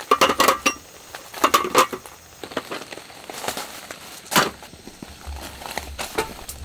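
Wooden clacks and knocks of a folding camp table being set up: two quick clusters of knocks near the start, one sharp knock past the middle, and lighter taps near the end.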